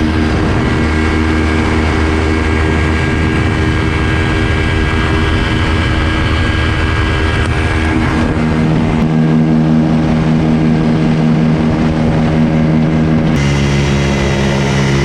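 Quicksilver ultralight airplane's engine and propeller running steadily under power. The engine note drops in pitch about eight seconds in and changes again near the end, as the throttle is moved.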